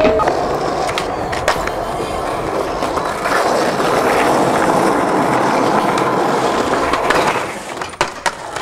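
Skateboard wheels rolling steadily over pavement. A few sharp board clacks stand out, two of them close together near the end.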